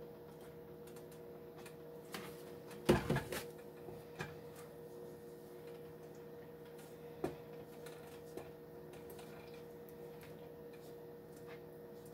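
Wooden spoon stirring thick white sauce in a skillet, with a few light knocks against the pan. About three seconds in comes a short cluster of knocks, the loudest sound, as the plastic milk jug is set down. A steady low hum runs underneath.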